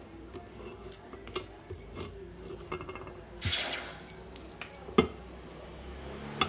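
Steel tongs clinking lightly, then a short hiss a little past halfway as the hot, freshly melted gold bead is quenched in a container of water. One sharp metal clink follows near the end.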